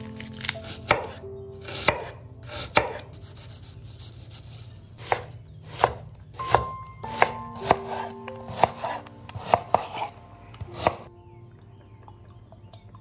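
A knife chopping vegetables on a cutting board: about sixteen sharp, unevenly spaced chops that stop a couple of seconds before the end.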